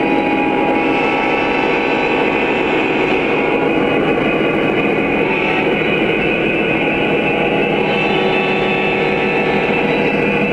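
Several Lionel Legacy SD70ACe model diesel locomotives passing with their onboard sound systems playing diesel engine sounds together, a steady, dense engine drone.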